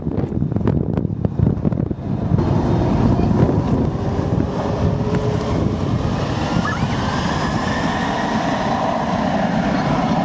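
A McDonnell Douglas MD-11's three jet engines running up to take-off thrust as the aircraft starts its take-off roll. The sound settles into a steady roar about two seconds in, with a faint whine slowly rising in pitch. Before that, wind buffets the microphone.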